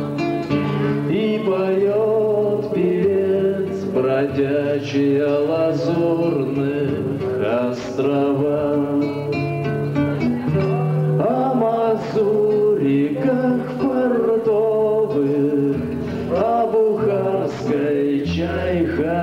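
A man singing a song to his own nylon-string classical guitar accompaniment.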